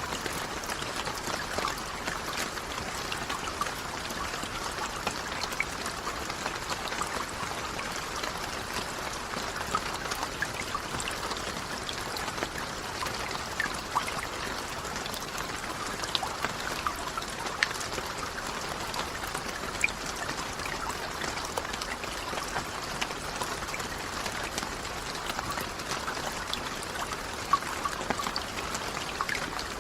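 Steady rain falling, an even hiss with many separate sharp drop ticks scattered through it.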